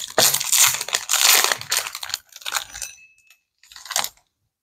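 A Disney Lorcana foil booster pack wrapper being torn open and crinkled by hand, dying away about two seconds in, with a few light ticks and a short crackle after.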